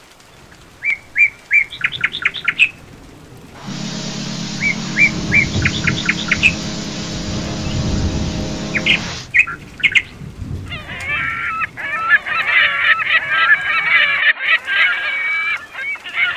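Ship's whistle blowing one long steady blast of about six seconds, starting and stopping abruptly, with short bird chirps before it and over it. Afterwards comes a dense stretch of bird calls.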